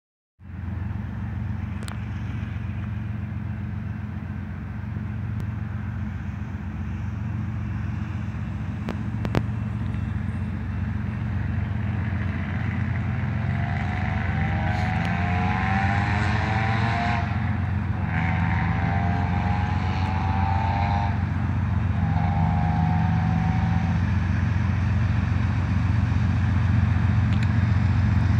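Approaching diesel freight locomotives give a steady low rumble that slowly grows louder. A locomotive air horn sounds three times, starting about halfway through: two long blasts and then a shorter one.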